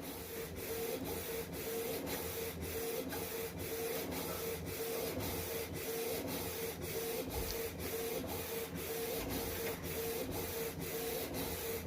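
Canon PIXMA MG2470 inkjet printer running a print job, printing its print-head alignment page: a steady mechanical whir with a constant hum and a regular beat about three times a second as the print head works across the page.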